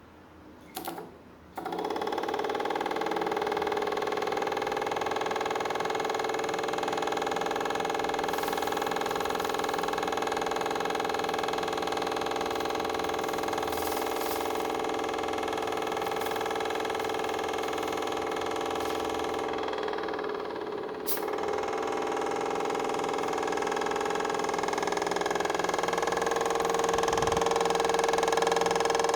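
Homemade air compressor built from a refrigerator compressor, starting up about a second and a half in and running with a steady mechanical hum. It dips briefly about two-thirds of the way through and grows a little louder near the end.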